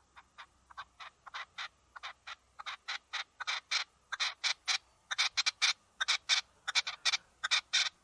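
Red-legged partridge calling: a long run of short, repeated notes, about five a second, growing louder through the series.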